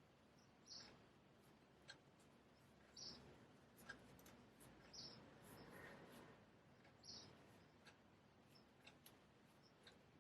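Faint scraping strokes on a whetstone, about one every two seconds, with a few light clicks.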